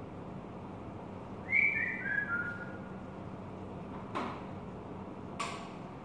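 Bulbul giving a short whistled phrase of four clear notes, each lower than the last, about a second and a half in. Two sharp taps follow, one past the middle and one near the end.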